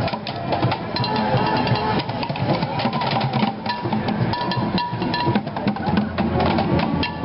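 Street marching band playing, led by drums and percussion, with a dense, steady run of strikes over some held notes.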